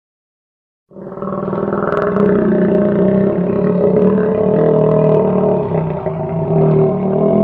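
A long, continuous animal call with a low pitched drone and its overtones, starting abruptly about a second in and held steady without a break.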